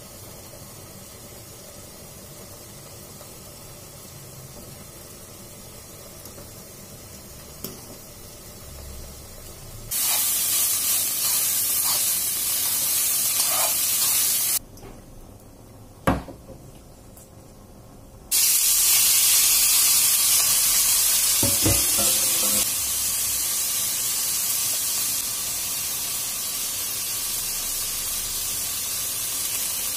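Faint steady hiss of broccoli boiling in water, then, about a third of the way in, loud frying sizzle as chicken pieces are stirred in a nonstick frying pan. The sizzle drops away for a few seconds with one sharp knock, then comes back loud as sliced beef fries in the pan.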